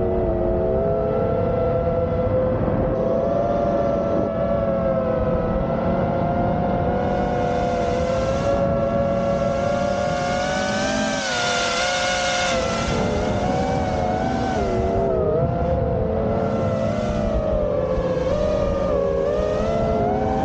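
Brushless motors and propellers of a 5-inch FPV quadcopter whining in flight, heard from a camera mounted on the quad: several close tones that waver up and down with the throttle over a steady rush of prop wash. The whine rises and brightens about ten to twelve seconds in, then settles.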